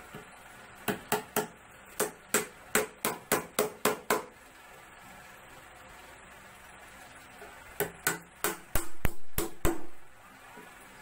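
Hammer driving nails into the plywood top of a small cabinet box: a run of about a dozen sharp strikes, a pause of a few seconds, then another quicker run of blows.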